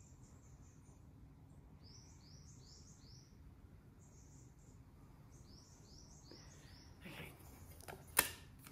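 Faint bird chirping: quick groups of three or four short, high chirps, repeated several times. A single sharp click near the end.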